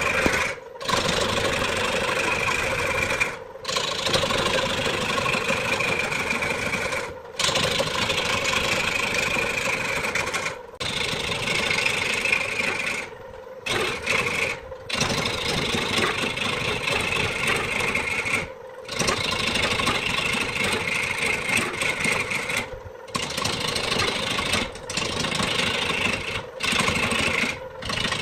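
A motor-driven woodworking tool working wood in repeated passes of a few seconds each. Its whine sags a little in pitch through each pass and drops away briefly between passes.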